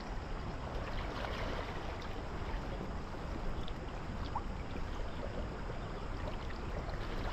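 Steady rush of a small river's flowing water, with a few faint ticks over it.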